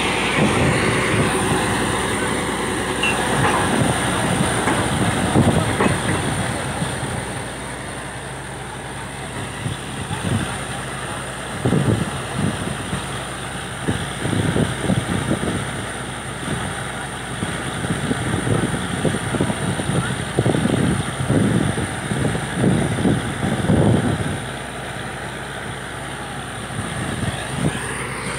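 Truck-mounted borewell drilling rig running steadily, with many irregular knocks from the rig head between about ten and twenty-four seconds in.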